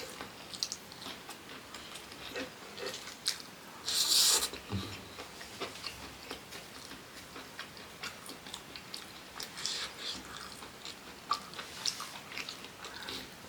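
Close-miked eating: chewing and biting food with frequent wet mouth clicks and crackles, and one short loud hiss about four seconds in.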